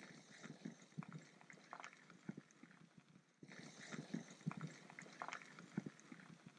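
Faint, irregular clicks, knocks and crackling of a bicycle rolling over a dirt track: tyres crunching on the dry gravel and the frame and gear rattling over bumps.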